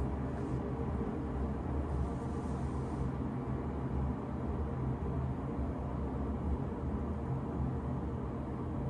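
Stainless-steel electric kettle heating a full load of water: a steady low rumble with a faint hiss.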